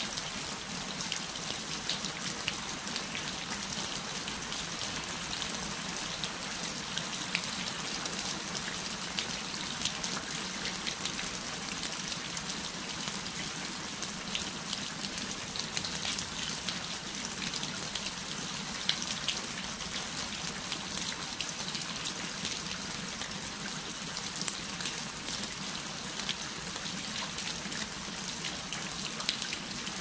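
Rainwater falling from the eaves onto concrete ground: a steady, dense patter of many small drop impacts.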